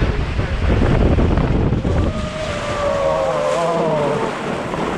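Water rushing and wind buffeting the action camera as an inflatable tube slides fast down a water slide. About two seconds in, a long wavering cry that falls slightly in pitch rises over the water for about two seconds. The loudness then eases a little.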